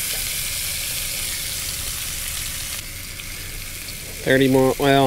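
Deer steaks searing in a hot cast-iron skillet, a steady sizzle that gets somewhat quieter about three seconds in.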